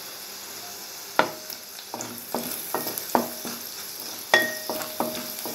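A tadka of garlic cloves, dried red chilli and urad dal sizzling in oil in a metal pan, with a spatula stirring and knocking against the pan. Each knock rings briefly, and the two sharpest come about a second in and about four seconds in.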